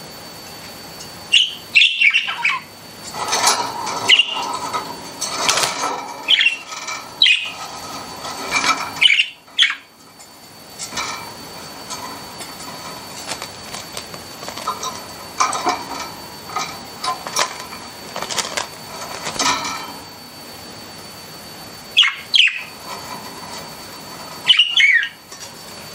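Pet budgerigars chirping and warbling, a busy run of short calls with a few sharper squawks. The chatter thins out briefly about ten seconds in, then picks up again.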